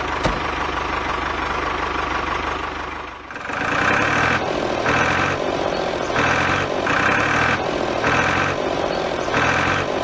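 Tractor engine running steadily. About three seconds in it cuts to a different engine sound that pulses about once a second.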